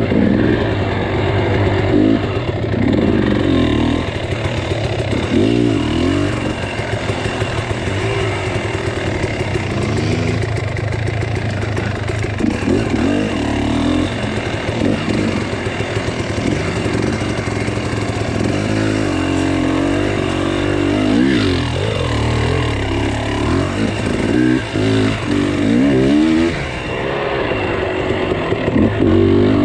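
An engine running steadily, with repeated revs that rise and fall in pitch.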